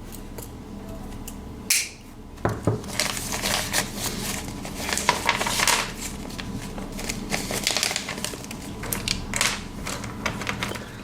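A bag of zipper pulls being opened and rummaged through: irregular rustling handling noise that starts about two seconds in and goes on in uneven bursts.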